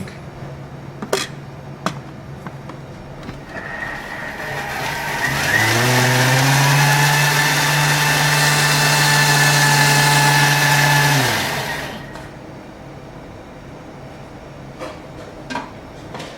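Blender motor spinning up about five seconds in, running steadily for about six seconds and then winding down, puréeing overcooked rice with miso and black sesame paste.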